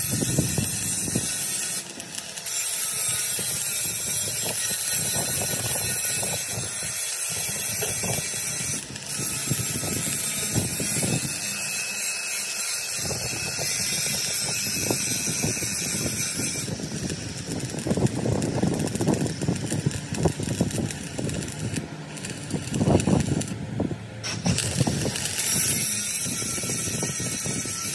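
Continuous mechanical rattling and crackling over a steady hiss, with many rapid clicks that grow busier and louder in the second half.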